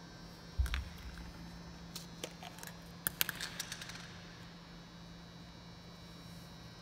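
Plastic prescription pill bottles and their snap caps handled on a wooden floor: a low knock about half a second in, then sharp plastic clicks and rattles around two and three seconds in. A steady electrical hum runs underneath.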